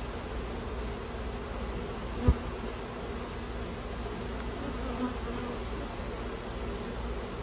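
Honeybees from an opened hive buzzing in a steady, droning hum. A single sharp thump sounds about two seconds in.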